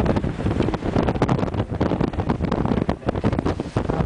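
Wind buffeting the microphone over the rumble of a moving vehicle, a loud, gusty low noise with no steady pitch.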